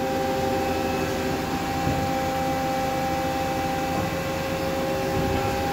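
Hyd-Mech H14A automatic horizontal band saw running idle with a steady hum of several fixed tones, from its motor and hydraulic pump. There are a couple of faint low knocks, about two and four seconds in.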